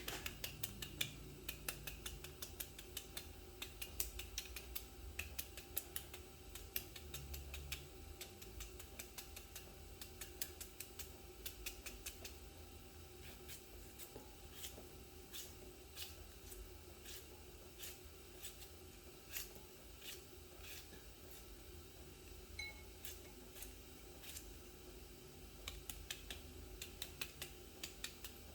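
Food being cut up for a salad: many quick, irregular snipping and clicking strokes, over a faint steady hum.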